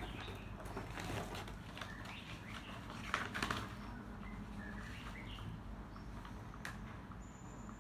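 Rustling and crinkling of parcel packaging being handled and opened, with scattered small clicks and a louder rustle about three seconds in.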